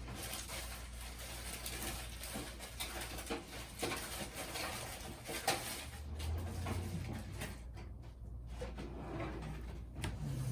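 Handling noise at a repair bench: irregular rustling with a few light clicks and taps as small items are moved about.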